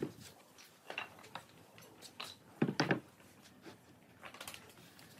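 Wooden bench frame and slatted seat panel knocking together as the frame is set down onto the seat and shuffled into place: a few scattered wood-on-wood knocks, the loudest a close pair a little before the middle.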